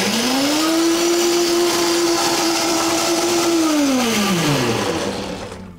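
KitchenAid Pro Line blender blending a thick white bean dip. The motor's whine rises to speed in the first second and holds steady. Over the last two seconds it falls in pitch and dies away as the blender is switched off.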